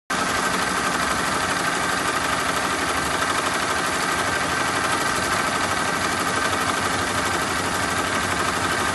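BESTSEW B-3620 fifteen-needle industrial embroidery machine stitching at speed: a steady, rapid mechanical clatter of the needle mechanism.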